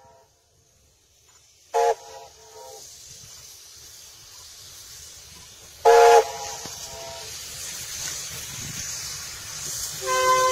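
Steam locomotive whistle giving two short toots, about two and six seconds in, then starting a long blast near the end. Between them the approaching engine's steam hiss grows steadily louder.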